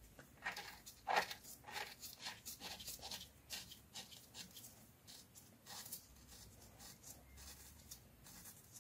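Faint, irregular scratchy ticks and rustles of gloved fingers hand-threading a small metal fitting, coated with thread sealer, into the engine's oil filter housing.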